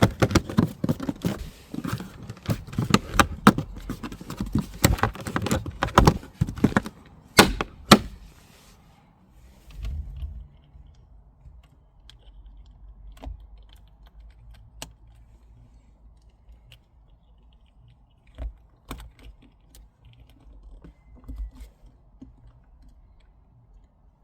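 Plastic interior trim being handled and pressed back into place: a busy run of clicks, knocks and rattles for about eight seconds, then only occasional light clicks.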